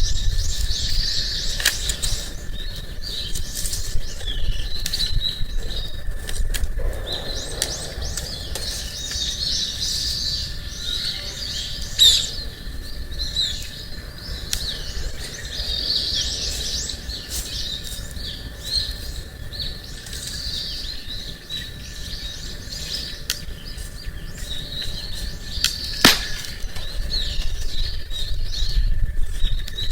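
Small birds chirping and singing without pause, with a few sharp pops and crackles from a wood campfire, the loudest about twelve seconds in and again near the end.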